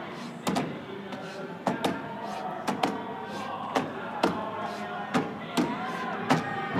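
Steel axes chopping into upright wooden logs in a standing block chop race, two choppers striking in turn: about a dozen sharp, cracking blows, roughly two a second, each one a hard bite of the blade into the wood.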